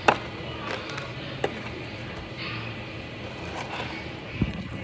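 Kitchen items being handled and set down on a counter: a sharp knock right at the start, a lighter click about a second and a half in, and a duller thump near the end.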